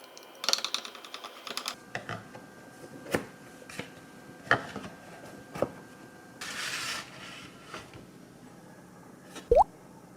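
Kitchen handling sounds: a quick rattle of light clicks, then several separate sharp knocks of utensils or dishware, a short hiss, and near the end a liquid plop with a quick upward pitch.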